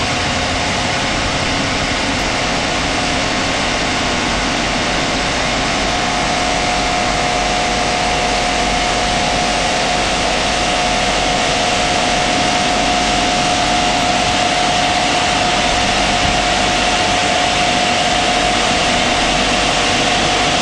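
Rollover car wash dryer blowers running as the gantry moves over the car: a loud, steady rush of air with a steady whine that comes in more strongly about six seconds in.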